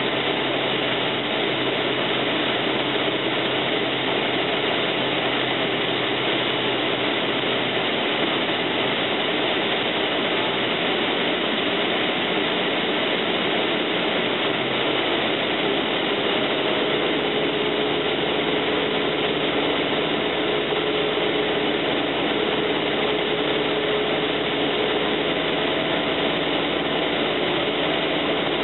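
Cessna 172M's four-cylinder Lycoming engine and propeller running steadily, heard from inside the cockpit.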